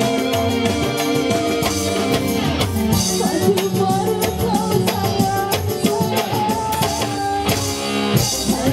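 Live band music with keyboard, electric guitar and drums, and a woman singing over it through the middle part.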